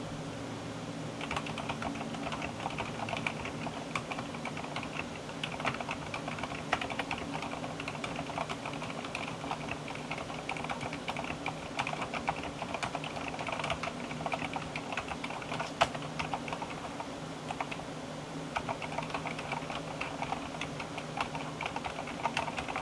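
Continuous typing on a Cherry MX 2.0S wireless mechanical keyboard with Cherry MX2A silent red switches: a dense, irregular stream of keystrokes with a few louder key hits.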